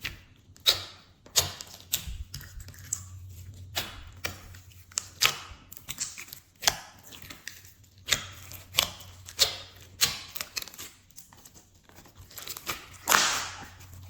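Glossy slime being mixed and squished, giving irregular sharp clicks and pops about once or twice a second, with a longer, noisier squish near the end.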